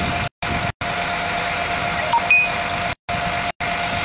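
A steady mechanical hum with a constant tone, like an idling engine, cut off by several brief dropouts in the recording. A short high ding sounds about two seconds in.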